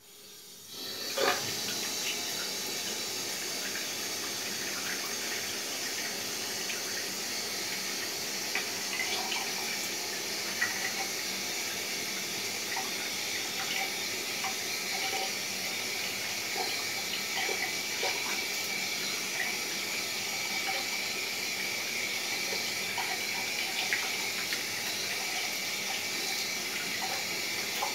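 Bathroom sink tap running steadily, turned on about a second in, with small splashes as he rinses his face in the stream.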